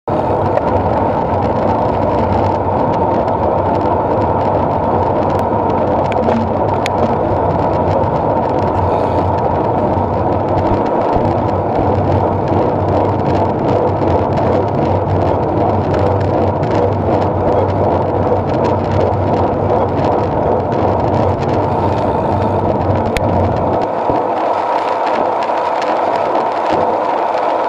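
Steady rushing noise of wind over a bike-mounted camera's microphone, mixed with the road tyres of a group of bicycles rolling on asphalt at speed. The low rumble thins out near the end.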